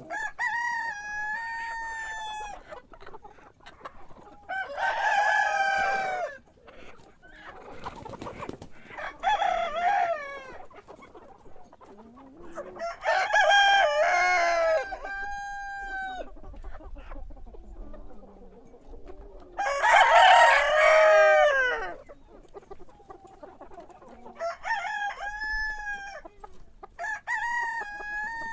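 Roosters crowing again and again, about eight crows in all, some loud and close and others fainter and higher. The loudest crow comes about twenty seconds in.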